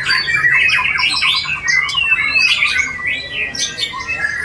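A dense chorus of caged songbirds singing over one another, as at a bird-song contest: white-rumped shamas with fast trills, chattering and sliding whistles, with no break.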